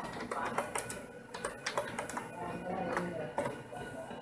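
Typing on a computer keyboard: irregular key clicks, several a second.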